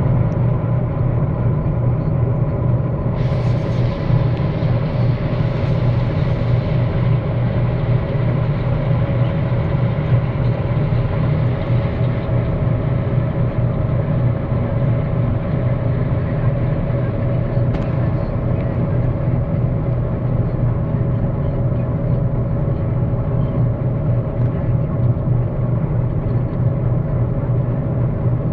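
Combine harvester running steadily under load while harvesting, heard from the cab: a constant drone of engine and threshing machinery with a steady hum. There is extra hiss for several seconds near the start.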